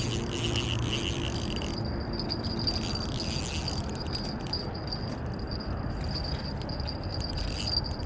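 Spinning reel being cranked to bring in a hooked trout, with light clicks from the reel. Over it run a low rumbling noise and a steady high-pitched tone.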